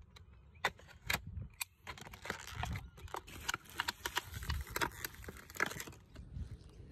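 Irregular clicks, taps and light knocks of parts and hand tools being handled, with no steady mechanical sound.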